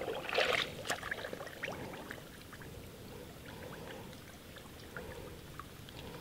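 Light water sounds: a small splash about half a second in, then scattered drips and faint trickling.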